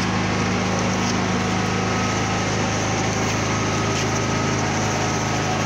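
A small motor running steadily: a low, even hum with a thin high whine over it.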